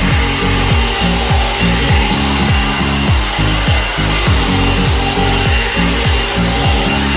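One-step hot air brush (hair dryer brush) running, its motor and fan blowing steadily with a faint whine, over background music with deep, repeating falling bass notes.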